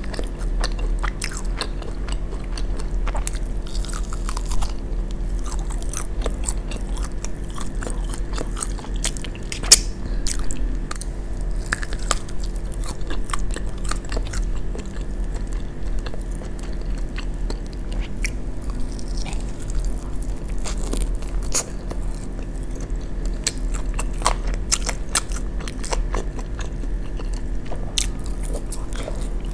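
Close-miked chewing and biting of fried chicken wings coated in barbecue sauce: a steady run of small wet mouth clicks and crunches, with one sharper click about ten seconds in. A steady low hum runs underneath.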